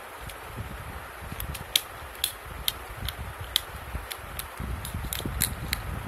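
Plastic fidget cube clicking under the fingers: about a dozen sharp, irregular clicks starting about a second and a half in, over low handling rumble.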